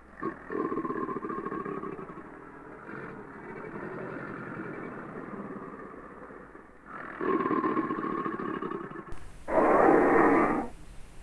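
Masiakasaurus dinosaur sound-effect calls: a series of long, rough vocal calls, the loudest one near the end.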